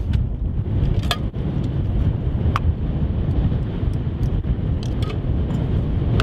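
Wind buffeting the microphone in a steady low rumble, with a few light clicks as a small gas stove burner is unscrewed from its canister and packed away.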